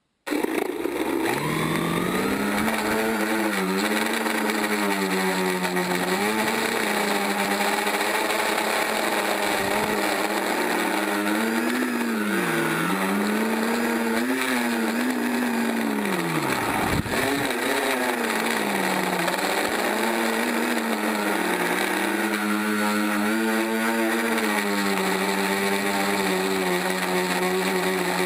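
FPV quadcopter's brushless motors and propellers, heard from the drone's onboard camera, starting abruptly and then whining with a pitch that swoops up and down as the throttle changes, with a sharp brief drop in pitch about 17 seconds in.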